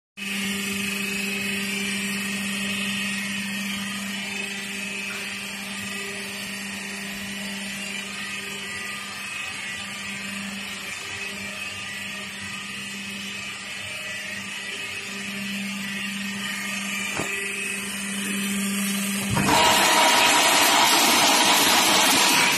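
Automatic chain link fence making machine running: a steady motor hum with a higher whine. Near the end a louder, harsher noise suddenly takes over.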